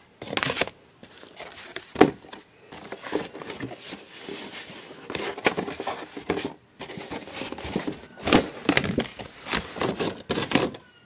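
Irregular handling noise of cardboard boxes: knocks, scrapes and crinkling, with a sharp knock about two seconds in and another near eight seconds.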